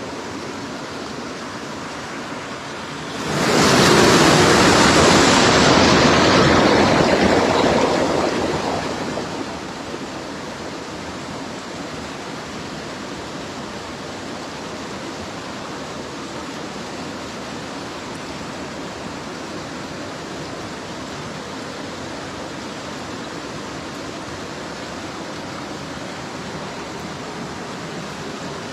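Steady rush of a small stream's flowing water. About three seconds in, a much louder rushing noise swells up, holds for a few seconds and fades away.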